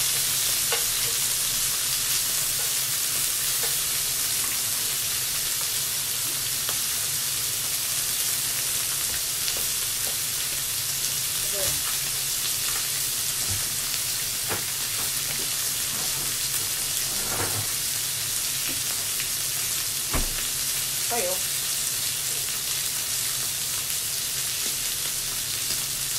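Meat and vegetables sizzling steadily on an electric tabletop grill plate, with a few light clicks of utensils turning the food.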